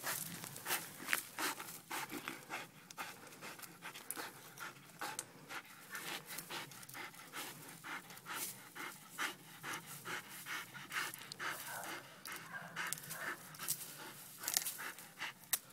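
A dog panting hard as it hangs from and bites at a tree branch. Many short clicks and scrapes run through it, several a second.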